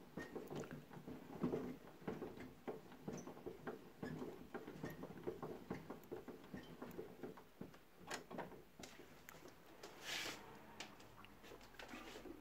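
Dulcetto wind-up gramophone being wound by its hand crank: a fast, irregular run of faint clicks from the spring motor's winding gear. A short hiss comes about ten seconds in.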